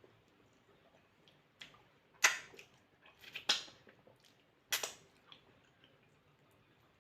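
Eating sounds at a meal of starch and banga soup: a handful of sharp, short smacks or clicks, loudest about two, three and a half and nearly five seconds in, with quiet between.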